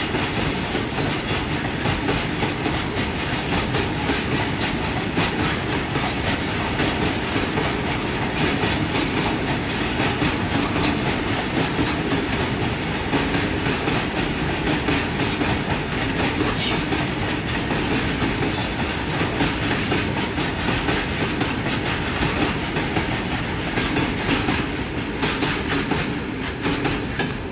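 Freight train of BCNA covered wagons rolling past on the Kaveri River bridge: a steady rumble with dense clickety-clack of wheels over rail joints, fading near the end.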